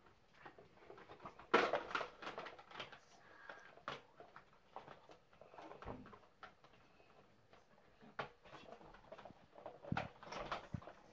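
Hard plastic clicks, knocks and rattles of a Ben 10 Rustbucket toy RV playset being handled and unfolded, its roof panel lifted and its side walls swung open. The handling is loudest in a burst about two seconds in and again near the end.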